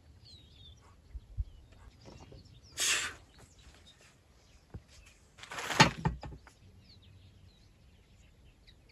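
Faint bird chirps, with a soft knock and two brief scraping sounds, about three and six seconds in, the second one the loudest.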